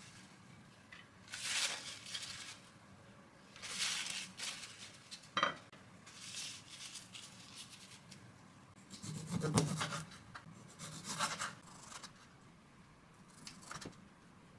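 Paper towel rustling in a series of short bursts as green grapes are patted dry one by one, with a sharp tap about five seconds in.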